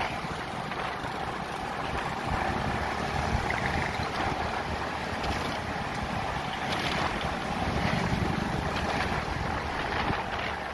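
Steady wind rushing over the microphone of a moving motorbike, with motorbike engine and road noise underneath.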